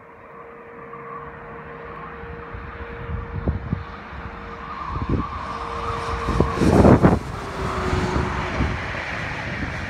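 Electric locomotive-hauled passenger train approaching and passing at speed: a rumble of wheels on rail that grows steadily louder, with a steady whine that drops in pitch as the locomotive goes by about seven seconds in, the loudest moment, followed by the rolling of the coaches.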